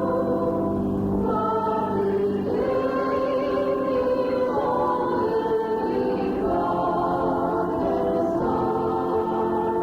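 A congregation singing a hymn together, many voices holding chords that change every second or so.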